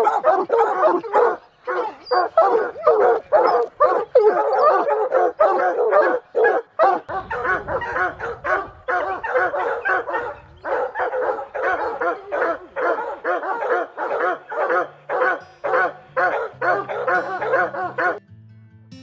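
Hunting hounds barking treed, a rapid, unbroken run of loud barks several a second: the sign that they are holding a mountain lion up a tree. The barking cuts off suddenly near the end as music comes in.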